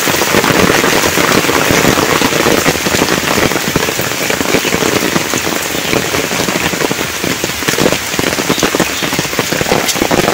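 Rain falling steadily: a constant hiss with many separate drops striking close by.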